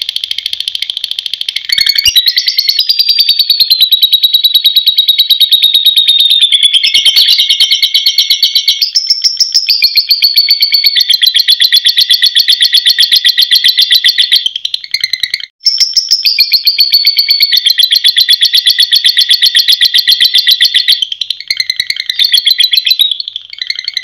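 Fischer's lovebird giving its long 'ngekek' chatter: a very fast, continuous, high-pitched trill of rapid repeated notes held for many seconds. It breaks off briefly about two seconds in and again just past the middle.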